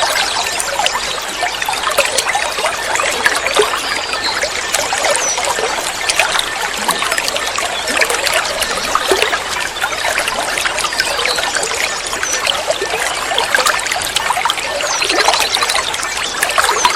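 Water trickling and splashing steadily, with short, high bird chirps here and there and a quick trill near the end.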